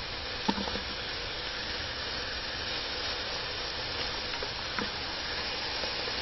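Steady sizzling hiss from chopped waterleaf heating in a pot on the fire, with a couple of light taps as chopped onion is dropped in.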